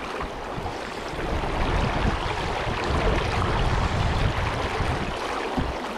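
Fast creek water rushing steadily as an even hiss, with a low rumble that swells through the middle and eases near the end.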